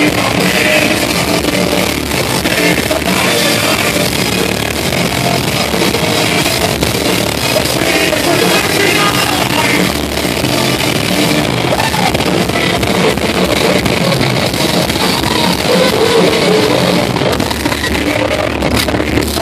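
Live rock band playing loud: electric guitar, bass and drums with a singer's voice over the PA.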